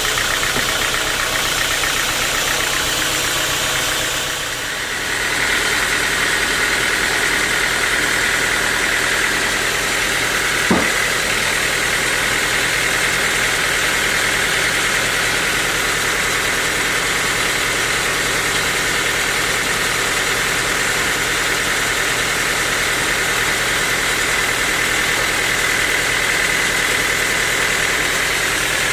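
Sawmill saw running steadily. After a short dip about four seconds in, a high steady whine sets in, and there is one sharp knock near the middle.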